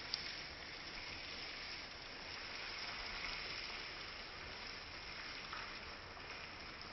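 Small rainforest stream babbling and trickling over its bed: a steady rush of running water. There is one sharp click just after the start.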